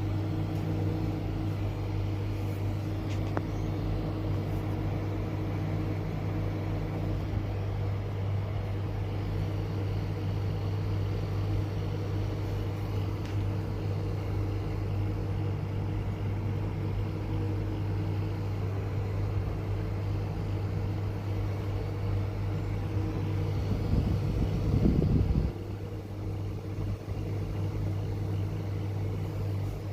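Embraco FGS70HA refrigerator compressor running with a steady low hum. Near the end a louder swell of noise builds for a couple of seconds and then cuts off suddenly, leaving the hum slightly quieter.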